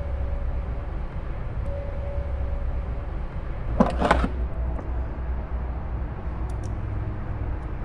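Short cluster of clicks and rattles from plastic dashboard parts and screws of a children's ride-on electric jeep being handled and positioned, about four seconds in, over a steady low background hum.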